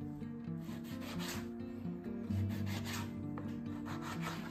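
A kitchen knife sawing through a raw white fish fillet and scraping on a plastic cutting board, several short rasping strokes about a second apart, over background music with steady low notes.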